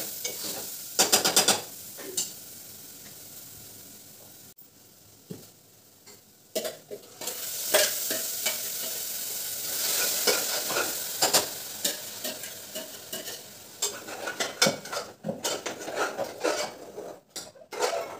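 Onion-tomato masala frying in oil in a steel pressure cooker, sizzling as a spoon stirs and scrapes it, with clinks of the spoon on the pot. The sizzle dies down a couple of seconds in, then comes back louder about seven seconds in.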